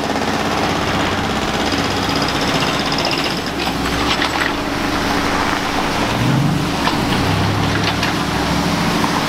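Diesel engines of backhoe loaders running together with passing car traffic: a steady engine drone, with a brief rise in engine pitch about six seconds in. A few sharp clicks come around four seconds in.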